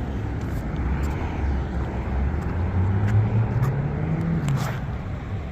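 Passing road traffic: a steady rumble of cars, with one vehicle's engine rising in pitch as it accelerates past about three seconds in.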